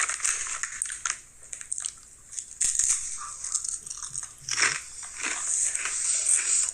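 Someone chewing Ruffles Queso Cheese potato chips: an irregular run of crisp crunches, with a couple of brief pauses between mouthfuls.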